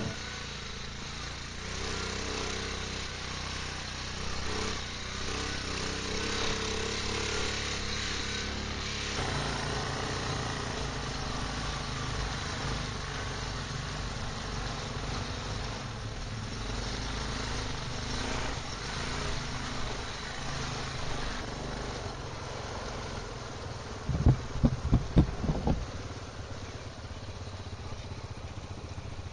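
Quad bike (ATV) engine running steadily while riding over a rough, rocky track. Near the end comes a quick run of low thumps.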